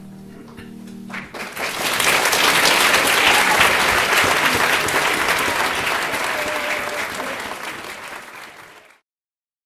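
A choir's held closing chord dies away, then an audience applauds for several seconds, fading out near the end.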